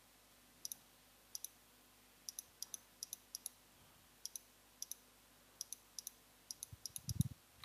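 Computer mouse clicking about twenty times at an uneven pace, each click a sharp press-and-release, as lines are picked one by one to trim them in a CAD drawing. A brief soft low thump near the end.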